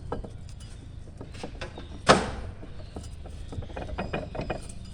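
Shop work with hand tools: scattered small clicks and knocks, with one loud, sharp clatter about two seconds in.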